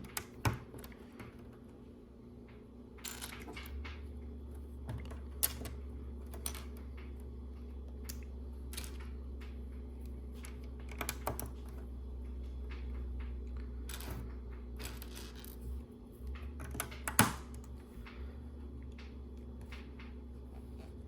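Small plastic LEGO pieces clicking and rattling as they are picked out and pressed onto the build, in scattered irregular clicks with a sharper snap about 17 seconds in. A low hum runs under most of it.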